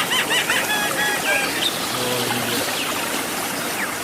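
A songbird calling over the steady rush of a waterfall: a quick run of short up-and-down notes in the first second, then a few level whistled notes.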